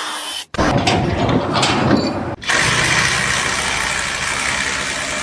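Engine running, in short pieces broken by two abrupt cuts, the last a steady loud run.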